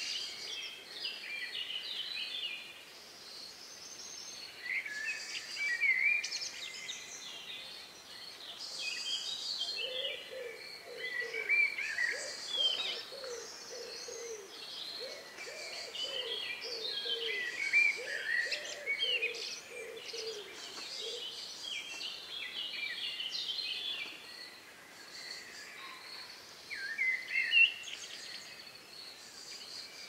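Evening bird chorus at dusk: several songbirds singing at once in overlapping, fast, high-pitched phrases. From about a third of the way in to about two-thirds, a run of low repeated notes sounds beneath them, and one loud call stands out near the end.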